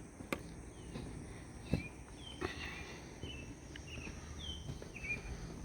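A small bird giving short, falling chirps, about five of them spread over a few seconds, against a quiet outdoor background. Two or three sharp ticks or steps sound in between.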